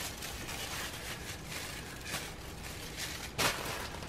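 Kitchen handling noise during sandwich-making over a steady background hiss, with one sharp knock about three and a half seconds in.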